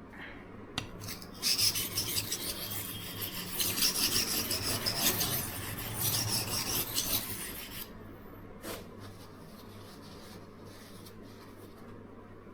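A knife blade scraping back and forth across the fine side of an oiled Norton 37C silicon carbide combination stone, in a run of sharpening strokes of about six seconds that then stops. There is a sharp click just before the strokes and another just after.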